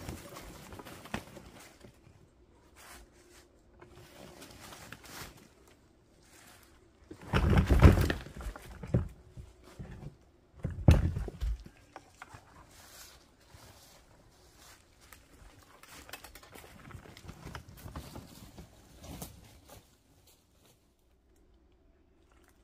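A wheelbarrow load of split firewood is tipped out, the pieces tumbling and clattering against each other in two loud bursts, three seconds apart. Before and after, there are footsteps and the wheelbarrow rolling through dry leaves.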